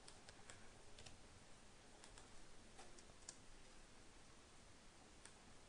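Faint, scattered clicks of a computer keyboard and mouse as lines of code are selected and deleted, over quiet room tone.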